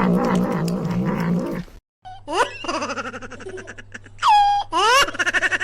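A low growl for under two seconds, then after a short break a cat meowing: rising calls about two seconds in and a longer one about four seconds in that falls and holds. Near the end it breaks into a quick pulsing call.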